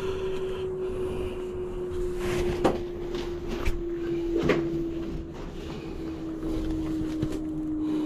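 Steady machine hum from an air conditioner's outdoor unit, its pitch sinking slowly. A few sharp knocks and taps come as gloved hands handle the unit's metal casing.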